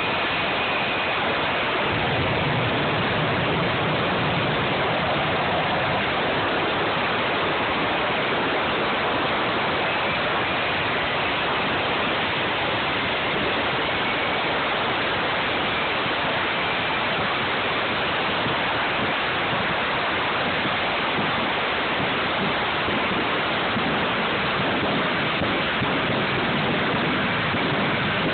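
Jet truck's jet engine running with its afterburner lit: a steady, dense noise at an even level, with a faint high whine in the first second.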